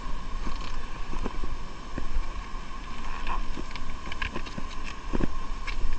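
Small boat engine running steadily under a low rumble, with a few short knocks, the loudest about five seconds in.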